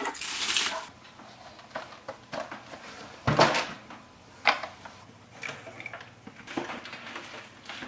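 Toy figures being lifted off a wooden shelf by hand: a scattered series of short knocks, scrapes and rustles, with one louder thump a little over three seconds in.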